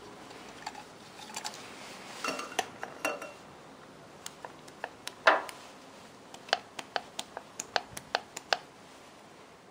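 Light metal clicks and clacks from a Porsche 911SC ignition distributor being handled and its drive shaft worked back and forth in its axial play. There is one louder clack about halfway, then a quick run of clicks, about four a second, late on.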